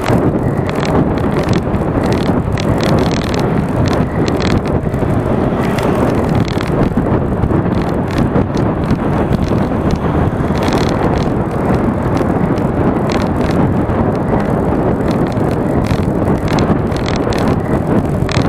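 Wind rushing over an SJ5000X action camera's microphone on a moving road bicycle, a loud steady roar mixed with tyre noise on asphalt, with scattered small clicks and rattles.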